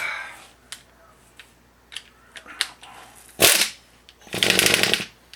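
Ingersoll Rand 3/8-drive air ratchet run in a short blip about three and a half seconds in, then for just under a second near the end, with a rapid rattling buzz while spinning out the 8mm bolts on the integrated wheel end actuator. Light clicks of the socket and tools come before it.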